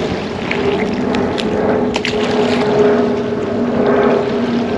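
A motor droning steadily with two held tones, with wind on the microphone and a few light clicks over it.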